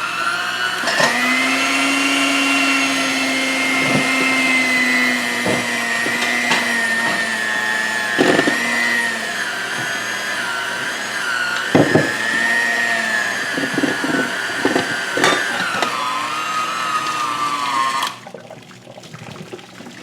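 Electric kitchen blender running for about eighteen seconds. Its motor whine climbs as it spins up, then wavers and dips in pitch, with a few sharp knocks along the way, before it is switched off.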